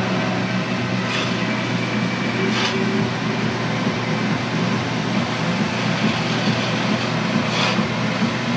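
Wood lathe running with a steady motor hum, with a few short hisses about a second in, a little after two and a half seconds, and near the end.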